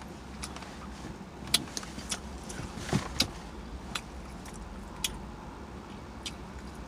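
Steady low hum inside a car, with scattered small clicks and ticks about once a second; the loudest are a pair about three seconds in.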